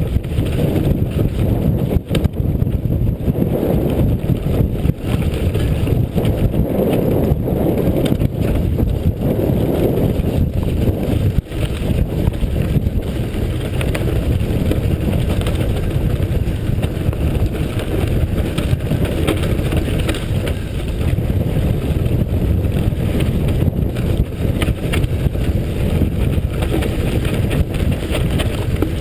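Steady wind rush on the microphone of a mountain bike descending a loose dirt and gravel track, with tyre noise and scattered knocks and rattles from the bike over rough ground.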